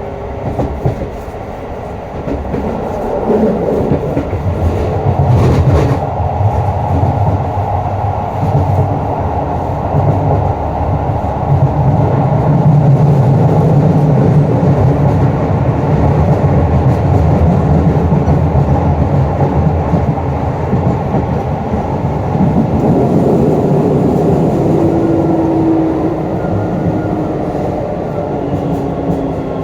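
Hokuso 7300-series train car 7301 heard from inside while running, its GTO-VVVF inverter and traction motors giving a tonal whine over the wheel-on-rail rumble. The whine rises in pitch and loudness a few seconds in as the train accelerates, holds through steady running with a few wheel clacks, then falls in pitch near the end as it slows.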